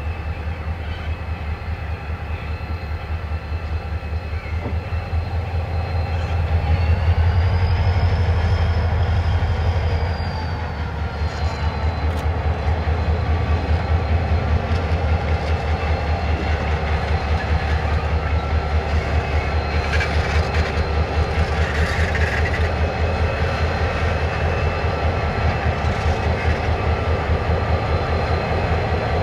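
EMD CLP-class streamliner diesel locomotive leading two more diesel locomotives past at low speed, their engines running with a deep, evenly pulsing throb. A high whine rises and falls a few seconds in, as the rumble peaks.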